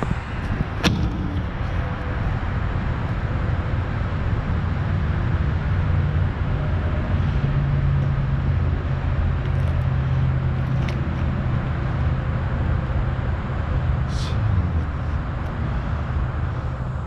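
Gator utility vehicle's engine running steadily, its pitch shifting a little midway, with one sharp click about a second in.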